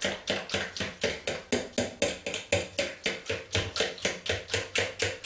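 Pancake batter being beaten by hand in a mixing bowl: quick, even strokes at about four a second, the utensil clicking against the bowl as the thin batter, just thinned with milk, is whisked smooth.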